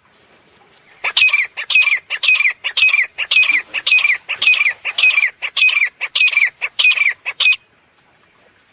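Grey francolin (teetar) calling: a rapid run of loud, harsh, shrill repeated notes that starts about a second in and stops abruptly after about six and a half seconds.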